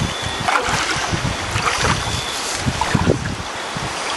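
Bare feet wading through a shallow, rocky stream, splashing irregularly with each step over the steady rush of flowing water.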